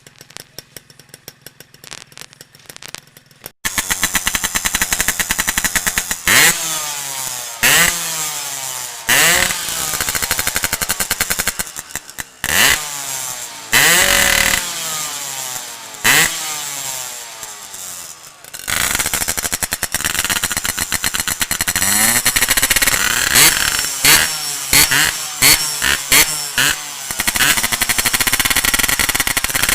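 Yamaha RX-King two-stroke single-cylinder engine with a Boban C39 aftermarket exhaust, revving. After a few seconds of faint crackling it comes in loud and is blipped over and over, each rev rising and falling about every second and a half. Past the middle it is held at steadier, higher revs with quick throttle blips.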